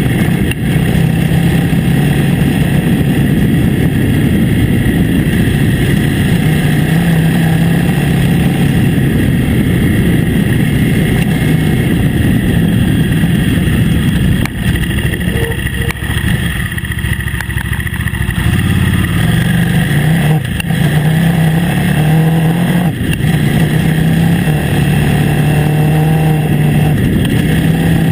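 KTM 950 Adventure S's LC8 V-twin engine running while the bike rides along a dirt track, with steady road noise under it. The engine note eases off for a few seconds past the middle, then picks up again.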